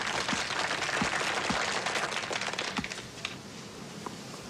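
Spectators clapping, a dense crackle of many hands that dies down after about three seconds, leaving a few scattered claps.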